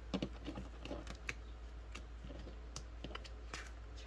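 Banknotes and the plastic sleeves of a budget binder being handled by hand: a string of light, irregular clicks and crinkles.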